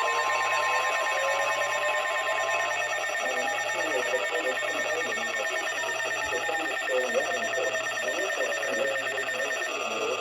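Electronic tones from an emergency alert broadcast over a noisy signal: a steady tone cuts off about 3 seconds in, while other tones glide slowly up and then back down, with faint muffled voices underneath.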